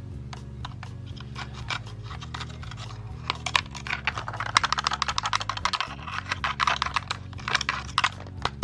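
Background music: a repeating low bass line under dense, crisp clicking percussion that grows busier and louder about three seconds in.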